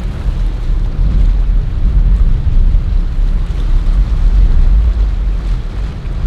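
Wind buffeting the microphone over the engine rumble and rushing wake of a Formula express cruiser running through choppy inlet water.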